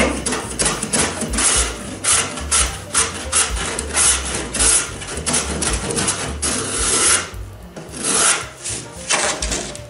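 Block plane shaving the straight edge of a thin 1/8-inch plywood door-skin pattern in quick short strokes, about three a second, with a brief pause about seven and a half seconds in.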